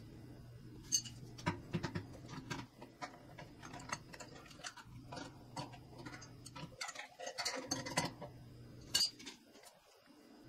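Irregular metallic clicks and clinks of hand assembly: a hand tool working at the blade hub of a 30-inch pedestal shop fan as the blades are fitted and fastened.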